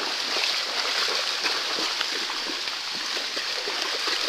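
Steady rain falling on flowing floodwater: a dense hiss with many small, scattered drop hits.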